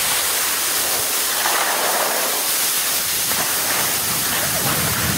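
Skis sliding and scraping over snow during slow snowplow turns: a steady hiss.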